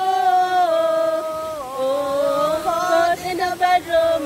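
A woman singing a slow song in long held notes, a single unaccompanied voice; about three seconds in the line breaks up into short choppy bits.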